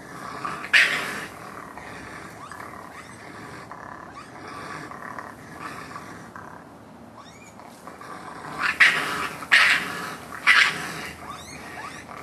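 Two raccoons fighting in a tree, giving harsh screeching snarls in short bursts: one about a second in, then a run of three or four close together near the end.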